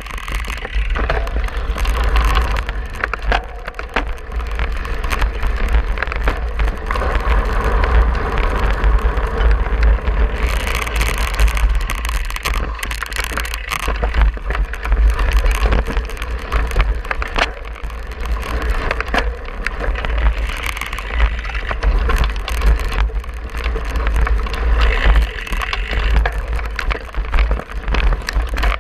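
Cyclocross bike ridden hard over rough grass and leaf-covered dirt: tyres crunching on the ground and the frame rattling with frequent knocks, over a steady low rumble on the handlebar-mounted camera.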